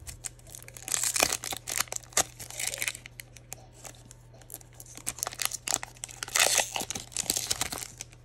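Foil wrapper of a Topps Merlin soccer trading-card pack being torn open and crinkled, in irregular bursts. The loudest come about a second in and again around six to seven seconds in.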